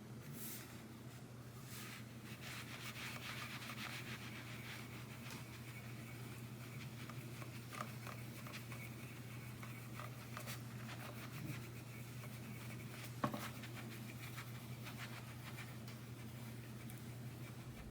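Cloth rubbing metal polish on a guitar's metal bridge posts: a faint, steady rubbing. A low hum sits underneath, with a single click about thirteen seconds in.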